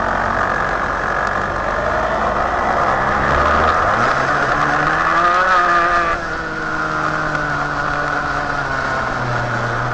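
Racing kart engine running hard, its pitch climbing steadily and then dropping sharply about six seconds in as the kart lifts off, before it runs on at a lower pitch.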